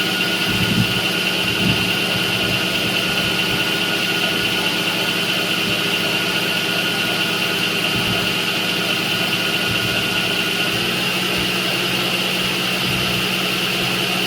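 Milling machine running a four-flute roughing end mill through 7075 aluminum on a roughing pass: a steady machine hum with a high whine over it. One of the higher tones fades about eleven seconds in.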